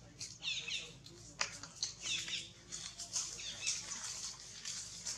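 Infant macaque giving short, high squeaks, three of them about a second and a half apart, while leaves and branches rustle as the monkeys move in the tree.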